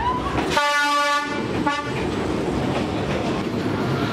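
A D12E diesel locomotive sounds its horn in one blast of about half a second, followed by a short toot. It then runs past at very close range with steady engine and wheel noise.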